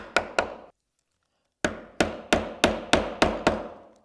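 A mallet striking a chisel held bevel down, chopping out mortise waste in elm. Three quick blows, a pause of about a second, then seven more at roughly three a second, each with a short ring.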